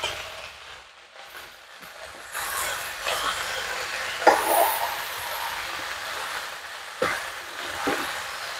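Vegetables being stirred in a large aluminium wok, with a steady hiss from about two seconds in. The spatula knocks against the pan three times.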